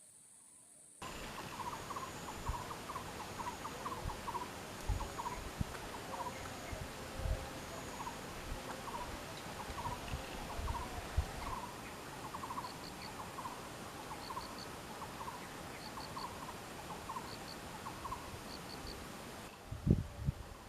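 Birds calling: a short burbling call repeated about every second, joined about halfway through by a high three-note chirp every second and a half, over scattered low knocks.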